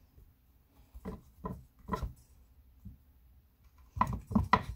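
Knife cutting the crust off a slice of soft bread: a few scattered soft knocks, then a quicker, louder run of them near the end.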